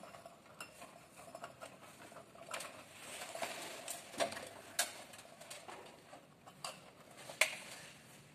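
Light clicks and taps of small metal parts and wire terminals being handled while the wiring of a halogen room heater is reconnected, over faint rustling. A few sharper clicks stand out, the loudest near the end.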